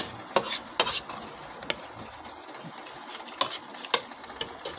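Metal forks and spoons clinking and scraping on plates during a meal: sharp, irregular clinks, several in the first second, then scattered ones later.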